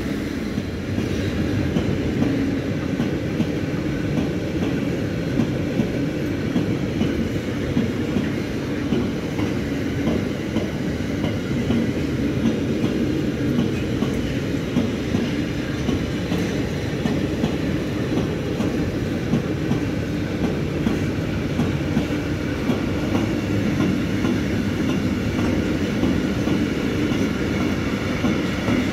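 Empty double-deck car-transporter freight wagons rolling past, their wheels clattering and rumbling steadily over the rails, with a faint high wheel squeal that grows a little near the end.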